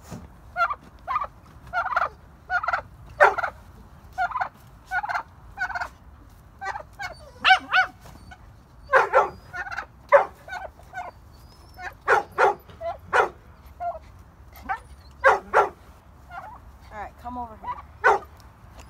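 Chickens clucking and squawking in a quick run of short calls, about two a second, some louder than others.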